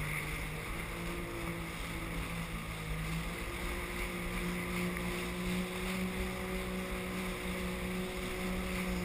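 Sea-Doo personal watercraft engine running under way, its pitch stepping up slightly about three seconds in and then holding steady, over a constant rush of wind and water spray.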